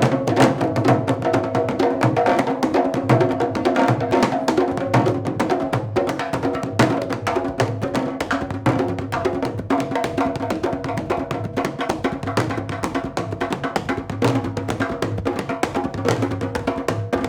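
Candombe drums playing a steady, dense rhythm of quick strikes on drumheads, with the sharp clack of sticks on the wooden shells.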